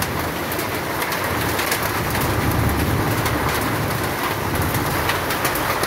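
A steady downpour of rain mixed with hail, with many sharp ticks of hailstones striking the ground and nearby surfaces over an even wash of rain noise.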